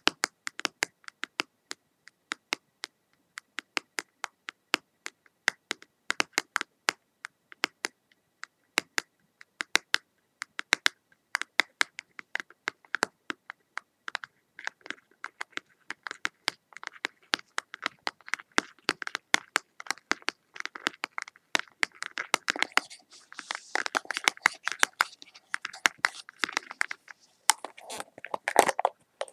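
Close-up ASMR tapping and scratching: a run of sharp clicks, about three a second, that turns into denser scratching and crinkling over the last several seconds.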